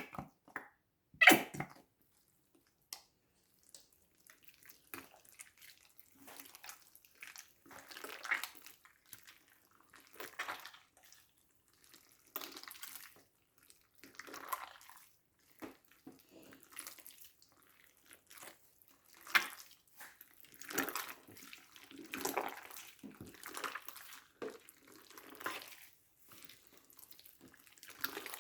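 Slime being worked by hand: irregular short wet squelches and squishes. There is a sharp click a little over a second in.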